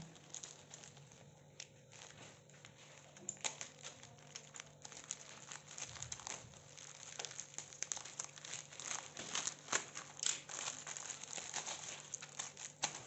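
Plastic courier mailer crinkling and crackling as it is slit open with a utility knife and a plastic-wrapped package is pulled out. The crackles are irregular, sparse at first and much denser from about three and a half seconds in.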